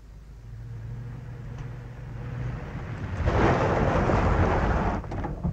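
Car driving on a gravel road: a steady low engine hum as it approaches, then about three seconds in a loud rushing rumble of the car and its tyres on the gravel as it comes close, which drops away near the end.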